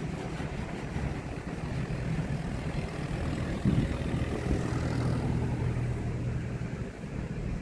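A rolling-highway freight train, lorries loaded on low-floor wagons, passing close by: a steady low rumble of wagon wheels on the rails with a faint hum, and a louder knock about three and a half seconds in.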